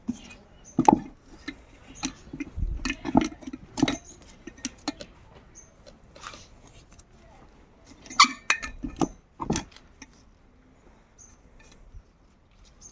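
Irregular metallic clinks and knocks of motorcycle engine parts being fitted by hand, as the cylinder block and piston go onto a Passion Pro engine. The loudest knocks come about a second in, around three to four seconds in, and again around eight and nine and a half seconds in.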